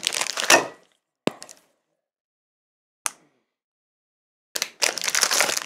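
Wrapper crinkling, then two sharp snaps as a bar of chocolate is broken into pieces, and crinkling again near the end.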